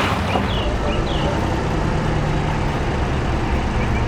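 Heavy diesel engine of an excavator running steadily with a low rumble, with a few short high chirps about half a second to a second in.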